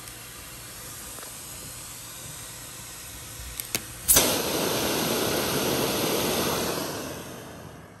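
A central vacuum wall inlet: a couple of light clicks and a sharp clack as a wand is pushed into the inlet, then at once a loud, even rush of suction air through the inlet that runs for about three seconds and dies away near the end.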